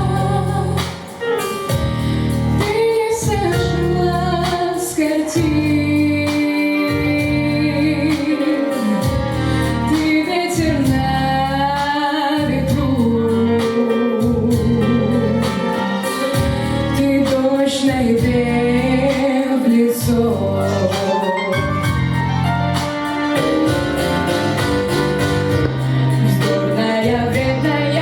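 A girl singing a solo pop song in Russian over instrumental accompaniment with a steady beat.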